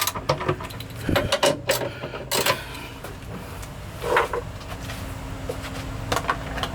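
Hand tools clicking and clinking in a handful of separate short knocks while a screw is worked on and sockets are swapped, with a faint steady hum coming in about halfway.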